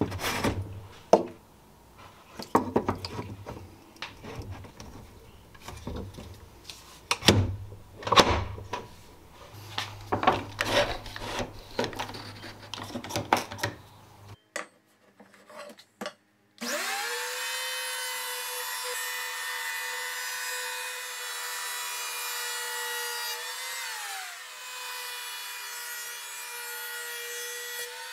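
Clicks and knocks of an Irwin Quick-Grip bar clamp being fitted into a hole in the bench front and ratcheted tight on a board. Then a handheld electric planer starts and runs steadily, its pitch dipping briefly near the end as it takes a cut along the edge of an oak board.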